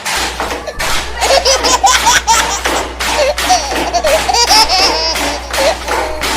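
Laughter, over a steady low hum and a run of sharp clicks.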